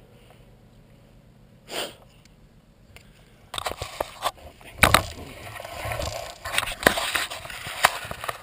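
Handling noise from a wearable camera and shotgun being moved: after a fairly quiet start, rustling and scraping with many sharp knocks and clicks begins about three and a half seconds in. Fingers rub against the camera near the end.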